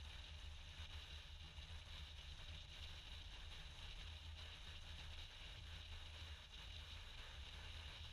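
Near silence: a faint, steady low rumble with a light hiss, unchanging throughout.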